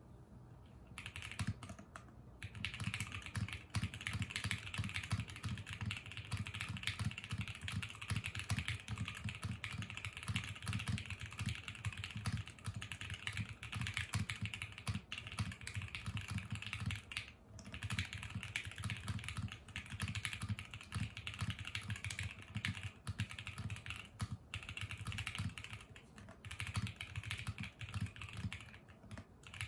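Fast typing on a Vertex Arc60 60% mechanical keyboard with lubed Alpaca linear switches on an aluminium plate in a gasket mount. A dense run of keystrokes starts about a second in and has a few brief pauses; each press has a low note under a brighter clack.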